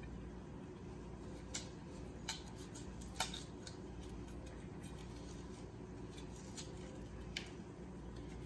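Kitchen knife cutting a peeled raw chayote on a plastic cutting board: a few separate sharp clicks and taps spread over several seconds, the loudest about three seconds in, over a steady low hum.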